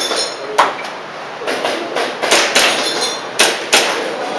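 Airsoft pistol shots during a practical-shooting course of fire: about six sharp cracks at uneven intervals, several coming in quick pairs.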